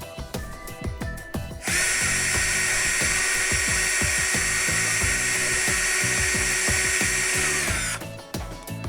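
A power drill runs steadily for about six seconds, starting about two seconds in, then slows and stops. Background music plays underneath.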